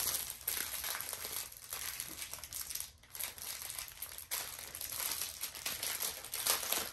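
Thin plastic crinkling as it is handled: a run of irregular rustles, with a brief lull about three seconds in.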